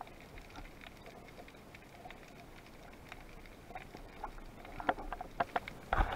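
Scattered underwater clicks and knocks as a spearfisherman handles his speargun, line and a speared fish, picked up through the camera housing. They come more often and louder in the last two seconds, ending in a burst of sharp knocks.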